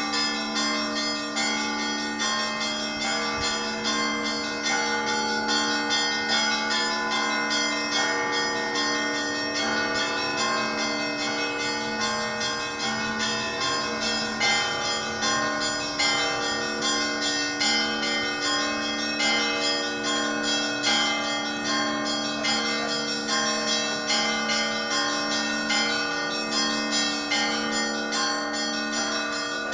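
Orthodox cathedral bells ringing in a continuous peal: several bells struck rapidly, a few strokes a second, over a steady low ringing tone.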